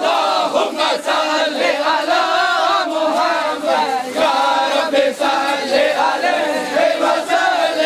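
A crowd of men chanting together in unison, many voices carrying one continuous devotional chant.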